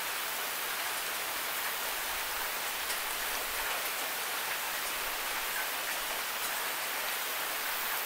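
Steady rain falling: a dense, even hiss with a few faint separate drop ticks.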